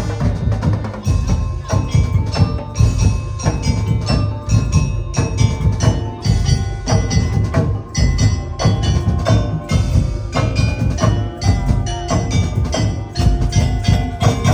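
Percussion ensemble music: struck pitched bars ringing over heavy, busy drumming.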